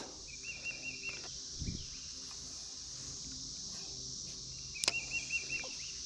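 Steady high insect chorus, with a bird singing a short wavering phrase twice, near the start and again about five seconds in, and a single sharp click just before the second phrase.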